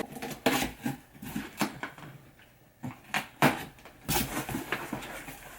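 A cardboard box of supplements being unpacked by hand: scattered rustles, crinkles and light knocks of packaging and items being moved, with a short lull about two seconds in.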